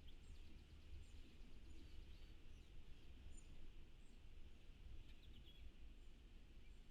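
Faint songbirds calling: scattered short, high chirps and a quick rapid trill near the start, over a steady low rumble of outdoor background noise.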